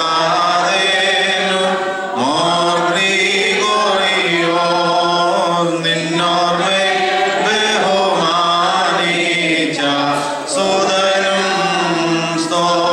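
Choir and congregation chanting a Malankara Orthodox liturgical hymn, several voices singing together over a steady low drone.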